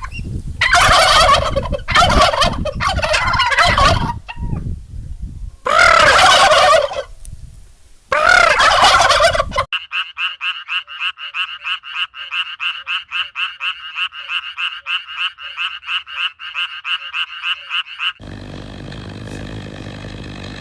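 Turkey gobbling in three loud, warbling bouts. These are followed by a rapid, even pulsing call of about five pulses a second lasting some eight seconds, and then a rasping sound starts near the end.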